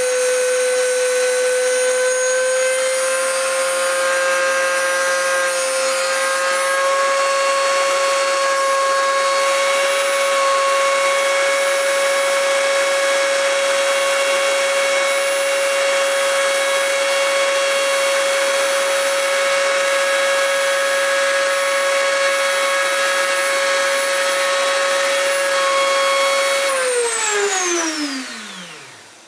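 Dremel rotary tool on a CNC machine, its cut-off disc cutting a Schlage key blank: a steady high-speed motor whine with a grinding hiss. About 27 s in the tool is switched off and spins down, its pitch falling steeply as it goes quiet.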